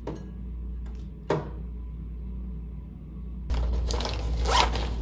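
A bare foot stepping onto a glass bathroom scale: a light click, then a sharp click with a short ring about a second in, over a steady low hum. From about three and a half seconds in, louder rustling as a small green pouch is handled.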